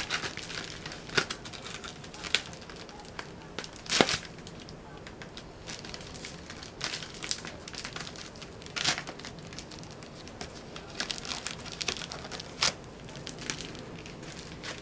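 Plastic wrapping crinkling and rustling as it is handled and pulled open, with irregular sharp crackles, the loudest about four seconds in.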